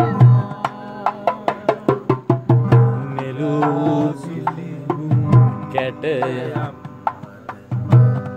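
Men singing a Sinhala song together to acoustic guitar, with sharp percussive beats and low thumps keeping a quick rhythm.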